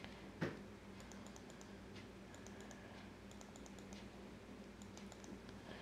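Faint clicking of a computer mouse, in small clusters of quick clicks every second or so, over a low steady hum. There is one louder tap about half a second in.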